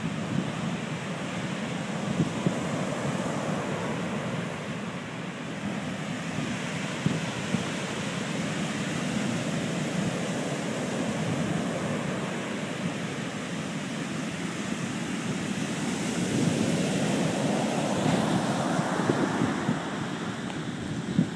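Rough surf breaking and washing up a sandy beach: a continuous rush that swells and eases, with a stronger surge about three-quarters of the way through. Wind rumbles on the microphone underneath.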